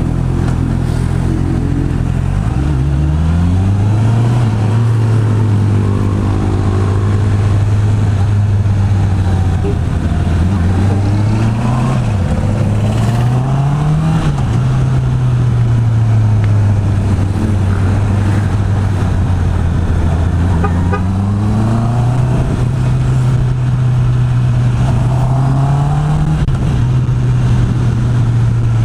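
Honda CB650R's inline-four engine through its stock exhaust, under way. The engine note climbs about three seconds in and then holds steady, rises and falls back around the middle, and climbs again later before settling.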